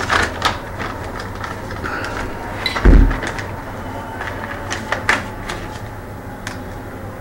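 Hands handling slips of paper and a pen: scattered light clicks and rustles, with one heavy, deep thump about three seconds in, over a steady low hum.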